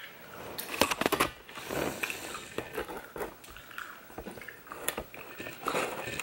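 A person chewing a jelly bean close to the microphone, with irregular wet mouth clicks and smacks, the sharpest about a second in.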